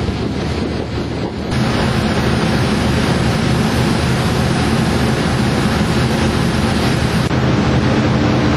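Wind buffeting the microphone over the rush of the open sea, joined about a second and a half in by the steady drone of the boat's engine from which it is filmed.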